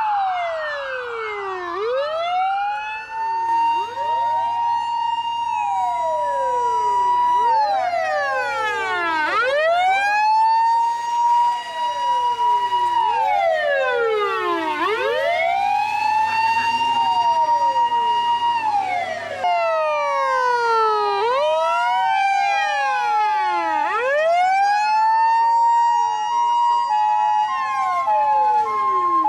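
Emergency-vehicle siren in wail mode: the pitch falls and rises again every few seconds, with several sweeps overlapping, and a cut about 19 seconds in. Near the end a steady two-tone hi-lo alternation joins in.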